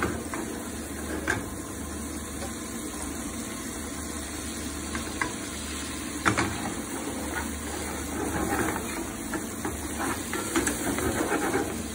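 Diced pancetta and garlic sizzling in a non-stick frying pan with a splash of pasta water, stirred with a wooden spatula, with a few sharp knocks of spatula and pan.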